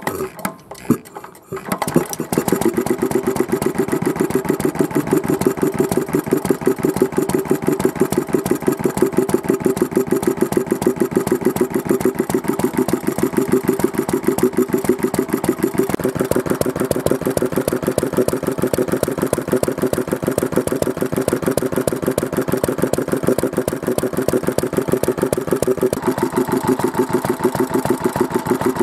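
Nissan Shatai 4CL kerosene stationary engine turned over by hand at the flywheel with a few knocks, catching about two seconds in and then running steadily with a fast, even firing beat.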